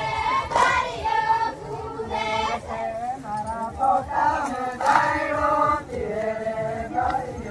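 A group of men, women and children singing a chant together for a garba dance, with a steady low beat underneath.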